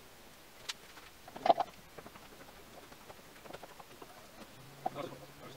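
Scattered light clicks and knocks of hand work in a car's engine bay, with a louder clatter about one and a half seconds in.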